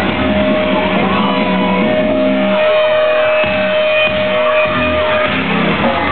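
Live rock band playing loud, with distorted electric guitars and drums; one note is held for about five seconds.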